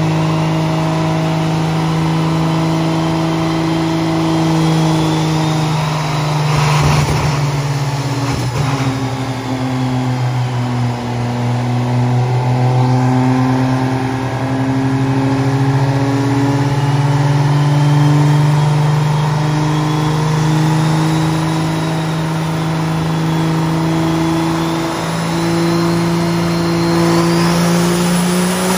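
Cummins inline-six turbo diesel in a Dodge Ram running flat out on a chassis dyno, a loud steady drone with a high turbo whistle wavering above it. Twice, about a quarter of the way in, a sharp crack cuts through; the engine note sags a little, then climbs near the end as it is pushed toward 3,000 horsepower.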